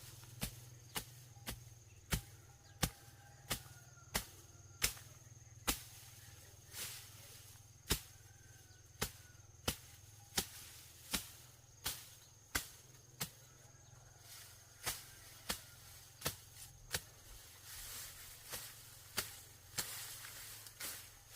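Repeated sharp chopping strikes, about twenty in all, coming every half second to a second in short runs with brief pauses, over a faint steady hum and a thin high insect-like tone.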